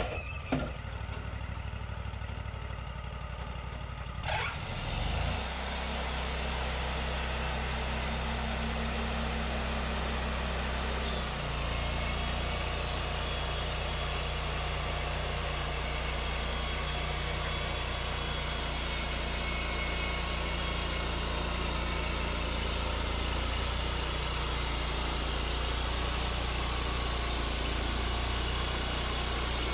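Wood-Mizer LT40 portable band sawmill sawing a white pine log: a steady engine drone with the hiss of the band blade cutting. The engine speeds up about five seconds in, and the sound shifts again near eleven seconds as the cut runs on.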